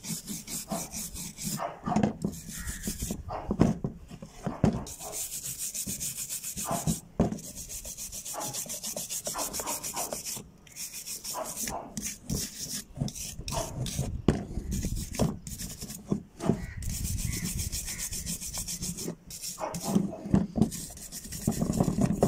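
Steel wire brush scrubbing rust and caked soil off a revolver's metal frame and cylinder, rapid back-and-forth strokes in runs of a few seconds with short pauses. A few louder knocks come through between the runs.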